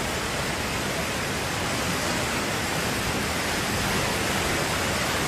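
Floodwater of an overflowing wadi rushing past in a steady, unbroken torrent.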